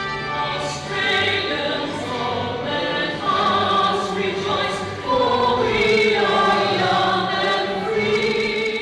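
A choir singing a national anthem with musical accompaniment.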